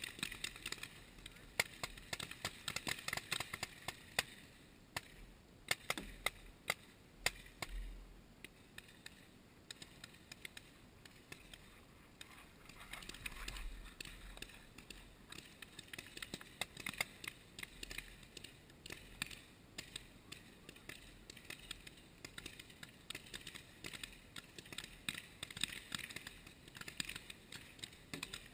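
Paintball markers firing: scattered sharp pops, often several in quick succession, coming in volleys across the field.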